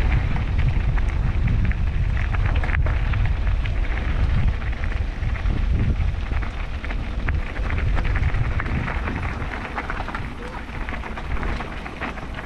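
Mountain bike descending a dirt trail: wind buffets the camera microphone in a steady low rumble, over constant crunching from the tyres and rapid rattling clicks from the bike.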